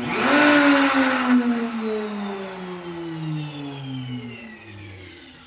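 Wood router mounted in a homemade router table starting up at once because it was plugged in with its switch left on, quickly rising to full speed, then winding down in a long, steadily falling whine after it is unplugged about a second in.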